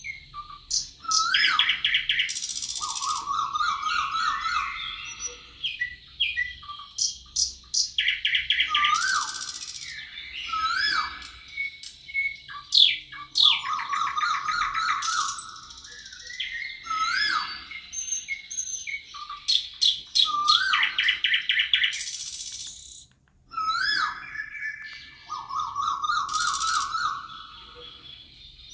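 Songbirds singing in a forest: song phrases of upslurred whistles, fast trills and very high buzzy notes, repeating every few seconds.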